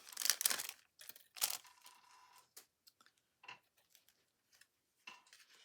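Paper and craft pieces rustling and crinkling as they are handled, loudest in the first half second, followed by a few soft clicks and taps.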